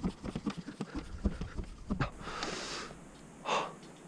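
Tubeless-inflator floor pump being worked with quick strokes, each one a short puff of air. About halfway through a hiss of air lasts just under a second, and near the end there is a second brief hiss.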